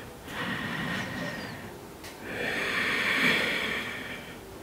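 A woman breathing audibly through the nose: two long, slow breaths, the second louder than the first.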